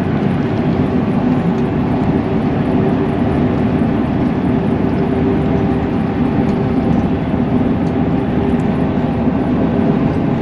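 Steady running noise heard inside a moving vehicle: an even low rumble with a constant hum over it, unchanging throughout.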